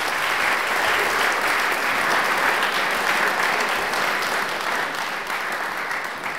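Applause from a seated audience of several dozen people, dense and steady, tapering off slightly near the end.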